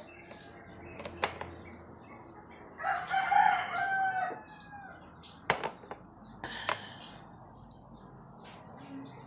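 A rooster crowing once, about three seconds in, a call of about a second and a half. A few sharp knocks sound around it.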